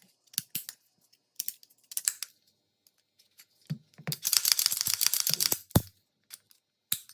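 Metal parts of a pistol clicking and clacking as it is handled: scattered sharp clicks, a dense rattling run of about a second and a half in the middle, and one hard snap just after it.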